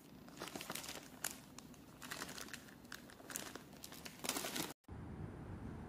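Clear plastic packaging bag crinkling as a hand handles it, with irregular sharp crackles. Just before five seconds it cuts off abruptly and a steady low background noise follows.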